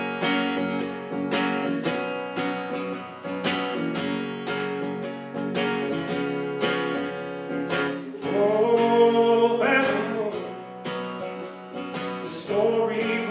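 Acoustic guitar strummed steadily, with a voice singing a long held note about eight seconds in and another near the end.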